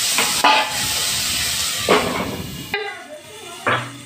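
Vegetables sizzling loudly in hot oil in a metal wok, with a couple of sharp clanks from its lid. About three-quarters of the way through the sizzling cuts off suddenly, leaving a quieter stretch with one more clink.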